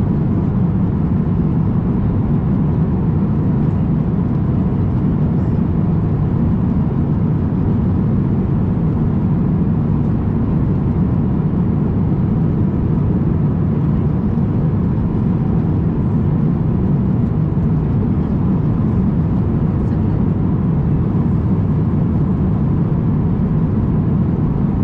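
Steady in-cabin noise of an Airbus A350-1000 airliner at cruise altitude: a constant low rumble of air and engine noise that does not change.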